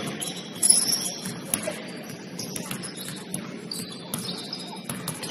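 Basketball shoes squeaking on a gym floor in short, high squeals, with a few sharp knocks, the loudest a little under a second in.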